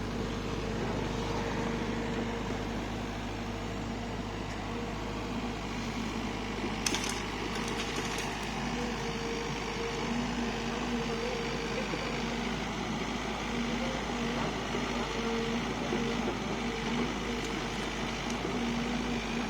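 SANY SY55C mini excavator's diesel engine running steadily with an even drone while it works. About seven seconds in there is a short burst of metallic clatter.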